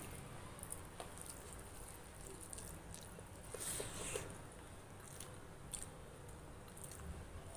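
Close-up eating sounds: fingers squishing and mixing soft rice, then a wet bite of a handful of rice about three and a half seconds in, the loudest sound, followed by chewing with small mouth clicks.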